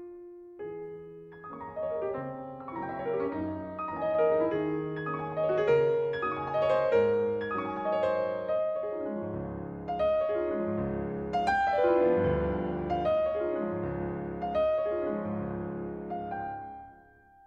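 Background piano music: a calm piece of many notes struck one after another, fading near the end.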